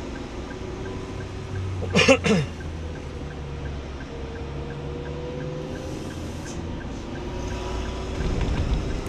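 Inside a slowly driving car: steady engine and tyre hum. A short, loud, wavering sound comes about two seconds in, and a low rumble swells near the end.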